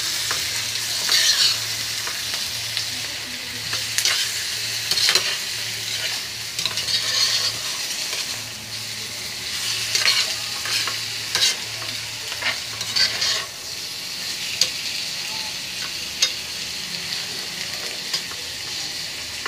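Milkfish pieces and sautéed tomato, onion and ginger sizzling in hot oil in a metal pan, with a metal ladle clinking and scraping against the pan at irregular moments as the fish is stirred and turned.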